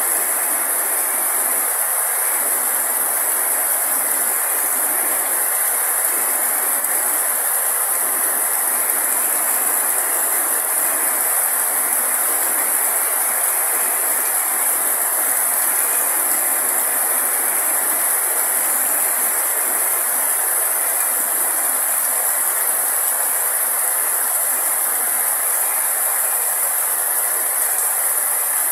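Heavy rain falling on grass and leaves, a steady hiss with no let-up.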